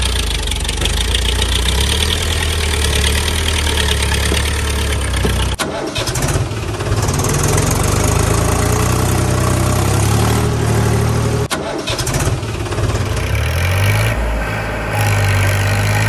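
Tractor engine sound running steadily with a low hum, laid over silent die-cast model tractors. It breaks off and restarts twice, about five and a half and eleven and a half seconds in, as a new engine recording begins.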